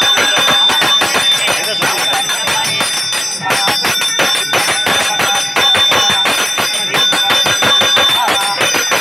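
Puja hand bell rung rapidly and continuously, its high ringing tones held throughout, with voices faintly beneath.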